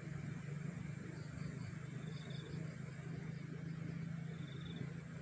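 Waterside outdoor ambience: a steady low hum under a steady high hiss, with a few faint short chirps.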